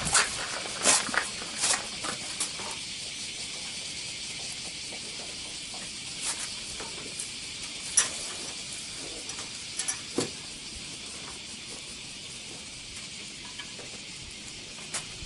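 Steady high hiss with scattered sharp clicks and taps, most of them in the first few seconds.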